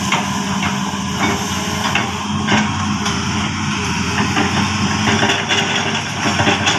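Hitachi 210F excavator's engine running steadily under load, with irregular knocks and cracks as its bucket chops felled oil palm trunks and fronds.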